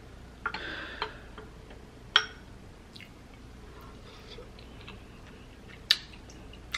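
Eating gumbo with a metal spoon: two sharp clinks of the spoon against the glass bowl, about two seconds in and near the end, with soft sipping and chewing sounds between.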